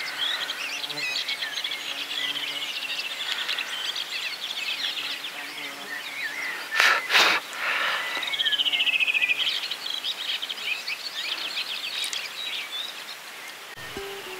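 Songbirds chirping and trilling, several calls overlapping, with a fast trill about nine seconds in. Two short, loud bursts of noise come a moment apart about seven seconds in.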